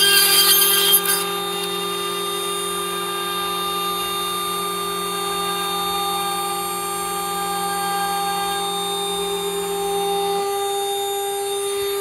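CNC router spindle running with its bit milling a tenon in a wooden beam: loud cutting noise for about the first second, then a steady whine. A lower hum drops out about ten seconds in.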